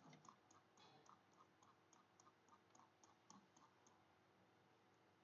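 Faint, quick clicks of a computer mouse scroll wheel, about four a second, stopping about four seconds in.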